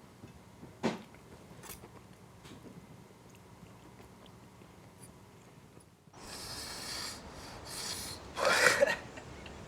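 Quiet room tone with a single click about a second in. After about six seconds a louder, even background hiss begins, and near the end there is a short, loud breathy burst, a sharp exhale or sniff.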